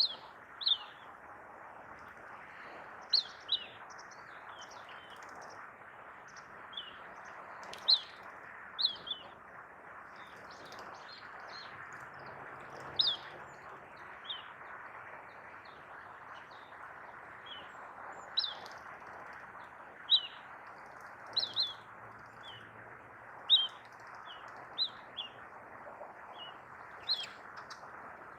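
Little ringed plover calling: short, high whistled notes that fall in pitch, given singly or in quick pairs every second or two, over a steady background hiss.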